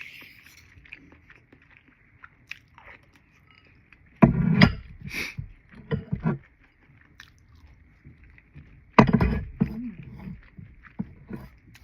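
Two loud burps, one about four seconds in and one about nine seconds in, with quiet close-up chewing and mouth sounds between them.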